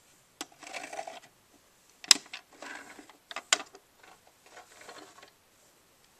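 Control handles of a vintage Lionel Type V transformer being turned and handled: scraping mechanical noise broken by three sharp clicks.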